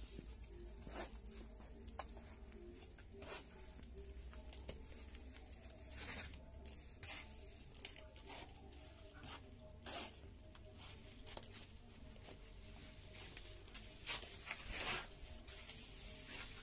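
Steel plastering trowel scraping and spreading cement mortar on an AAC block wall, in irregular short rasping strokes, the loudest about fifteen seconds in.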